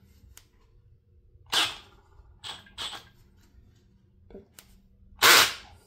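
Milwaukee cordless drill driving an Astro rivet nut drill adapter in several short bursts to set a 3/8 in. nutsert. The last burst, about five seconds in, is the loudest, and the drill's clutch slips before the insert is fully set.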